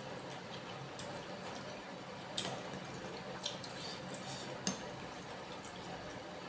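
Close-miked wet eating sounds: chewing and mouth noises from meatball soup with seblak, with a few sharp wet clicks.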